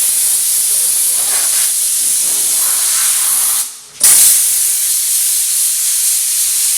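Compressed-air blow gun blasting dust off a table saw: a loud, steady hiss that breaks off for a moment about three and a half seconds in, then starts again.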